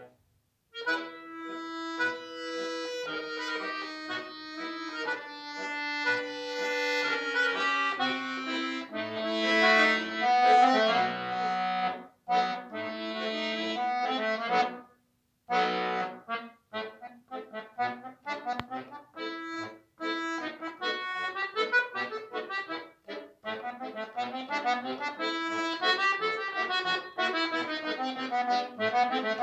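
Solo accordion playing: held chords with a moving bass line for the first half, broken by short pauses about 12 and 15 seconds in, then a fast passage of quick, short notes.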